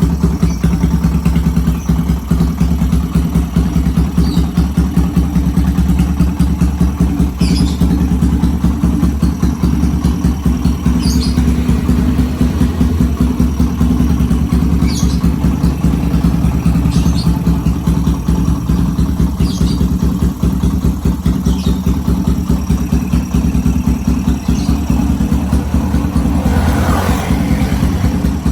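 Custom chopper motorcycle engine idling steadily, its exhaust giving a loud, rapid run of pulses with no revving.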